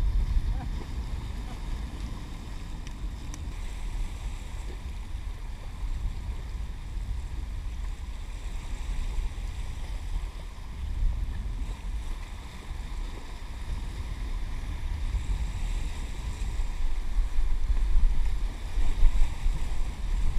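Wind rumbling on the microphone over a steady wash of choppy tidal water against a rock jetty, with stronger gusts about halfway through and again near the end.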